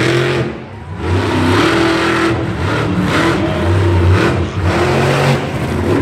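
Monster truck's engine revving hard in repeated surges, its pitch rising and falling as the throttle is worked.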